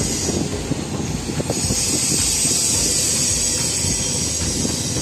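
Wind rushing over the microphone on a moving motorbike, with the low rumble of the ride underneath. The hiss grows louder about a second and a half in.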